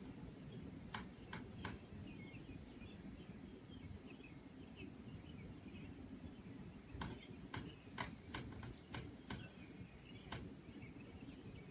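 Computer mouse clicks: three quick ones about a second in, then a run of about seven between seven and ten and a half seconds. Behind them are a steady low hum and faint bird twittering.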